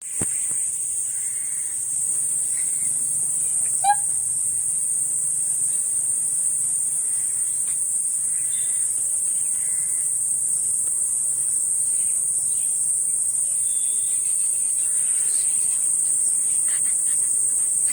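Insects trilling: one steady, unbroken, high-pitched drone, with a brief sharp sound about four seconds in.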